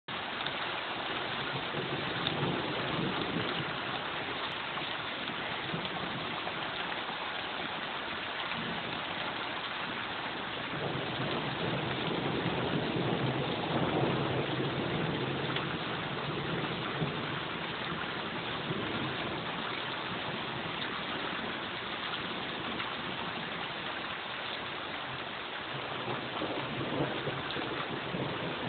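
Summer rain falling steadily on a street and lawns: an even hiss that holds at the same level throughout.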